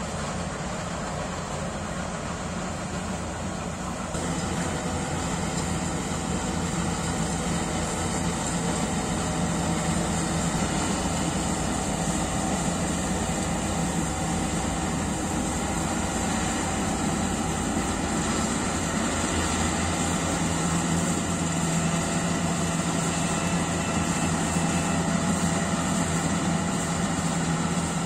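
Yanmar AW70GV combine harvester running with a steady mechanical drone, which gets louder about four seconds in.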